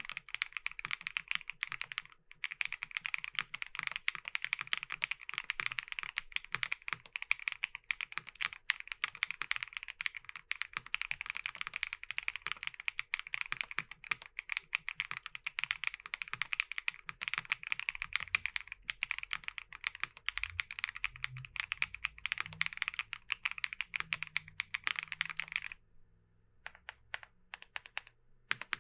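Fast, continuous typing on a Nuxros Kraze 65% mechanical keyboard with a polypropylene plate, PCB snaps and Keygeek Y2 switches. There is a brief pause about two seconds in. Near the end the typing thins to a few scattered single key presses.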